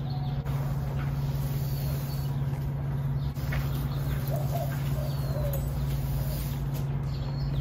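Birds chirping now and then over a steady low hum, with a few faint clicks.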